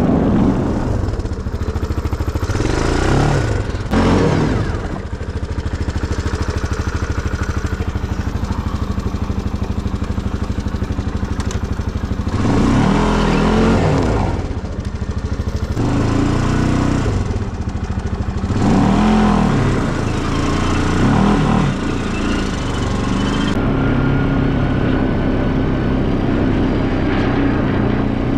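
ATV engine running while the quad drives over snow, its pitch rising and falling several times as the throttle is opened and eased off.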